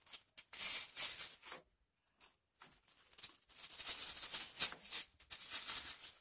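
Artificial silk flowers and their stems rustling and crinkling as they are handled and worked into place on a hoop. It comes in two stretches with a short pause about two seconds in.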